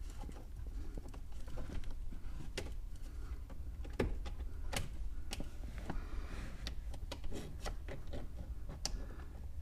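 Scattered light clicks and knocks from a tool working against the release pin under the steering column while the ignition lock cylinder is worked free, with faint rustling between them.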